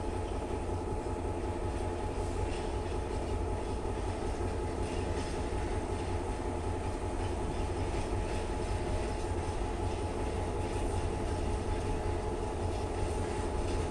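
Freight train of intermodal wagons rolling steadily past behind an ÖBB locomotive: a continuous low rumble of wheels on rail with faint clacks and a steady whine.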